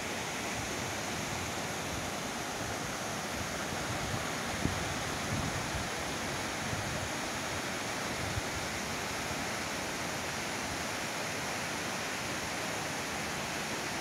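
Waterfall cascading in several strands over a rock face: a steady, even rush of falling water, with a few brief low bumps near the middle.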